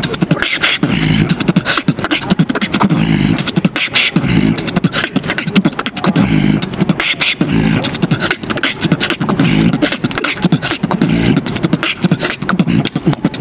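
Solo human beatboxing: a fast, dense rhythm of mouth-made kick, snare and hi-hat clicks, with low hummed bass tones pulsing underneath.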